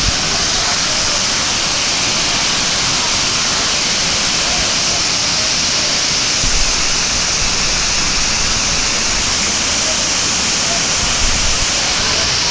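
Steady rush of water cascading down a theme-park waterfall, with indistinct voices of people underneath and two brief low bumps, one about halfway through and one near the end.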